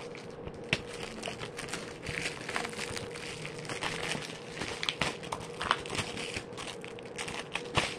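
Cellophane shrink-wrap being peeled and torn off a DVD case, crinkling and crackling in irregular snaps.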